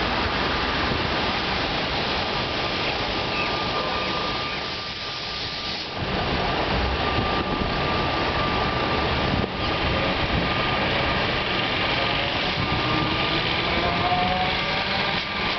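Steady vehicle rumble from buses and a train, with a thin high whine through the first half. Near the end, rising whines as an electric suburban train's motors pick up speed.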